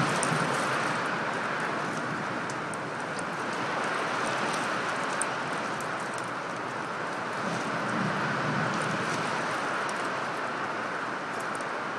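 Heavy storm rain and wind against window glass: a steady hiss with faint scattered ticks of drops. A low rumble swells briefly about eight seconds in.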